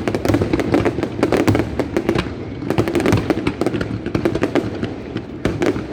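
Fireworks going off: many sharp bangs and crackles in quick succession, thinning briefly near the middle.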